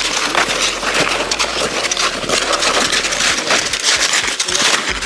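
Snowshoes crunching through snow, a dense run of crisp crunching steps.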